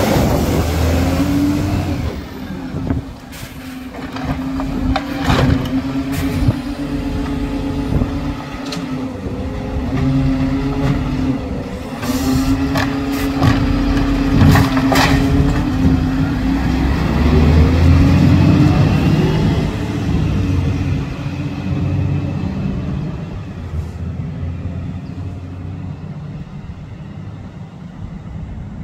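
Volvo side-loading garbage truck's engine and lift-arm hydraulics running with a steady hum while the automated arm grips, lifts and tips a wheelie bin, with several sharp clanks of the bin and arm between about five and fifteen seconds in. Near the end the truck pulls away and its engine sound fades.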